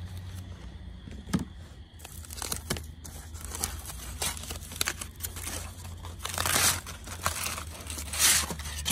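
Aluminium foil crinkling and tearing as baked potatoes are unwrapped, with scattered clicks and two louder crinkles near the end, over a low steady hum.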